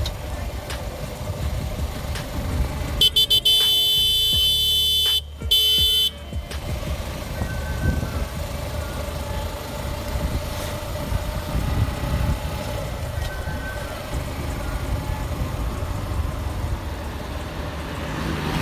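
A vehicle horn sounds loudly in traffic, a long blast of about two seconds followed at once by a shorter one, over steady road traffic noise.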